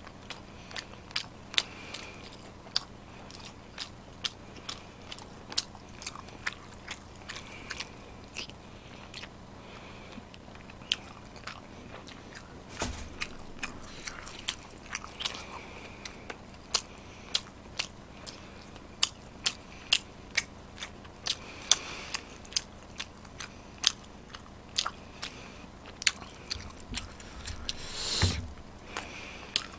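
A person chewing food close to the microphone, making sharp smacking clicks about two or three times a second. A longer, louder noise comes about halfway through and again near the end.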